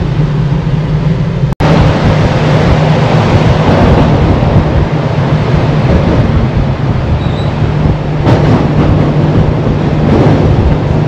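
Toyota Land Cruiser driving through a road tunnel, heard from a camera mounted on the outside of the vehicle: a steady rush of engine, tyre and wind noise with a low hum. The sound cuts out for an instant about one and a half seconds in, then carries on slightly louder.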